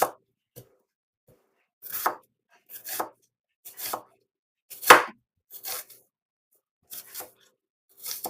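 Knife chopping on a cutting board in separate, unevenly spaced strokes, about one a second, the loudest about five seconds in.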